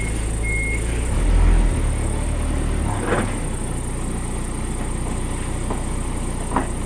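Engine idling with a low steady rumble that swells for about a second near the start. Two short high beeps come at the start, and a few scattered knocks and clanks follow as a cargo strap is worked on a truck trailer's deck.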